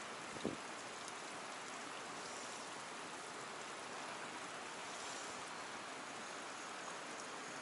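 Steady hiss of flowing water from a stream current, with one short knock about half a second in.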